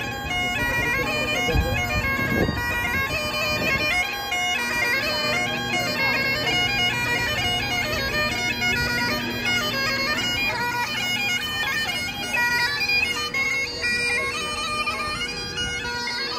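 Great Highland bagpipe played by a street piper: a melody on the chanter stepping from note to note over the steady hum of the drones.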